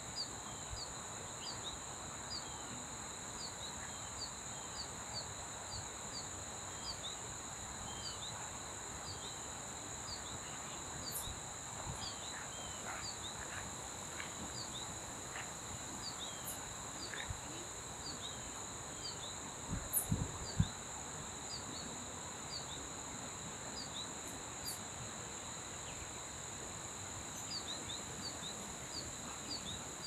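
Outdoor insect chorus, two steady high-pitched trills running without a break, with a bird giving short high chip notes about twice a second, pausing now and then. A few low thumps about twenty seconds in.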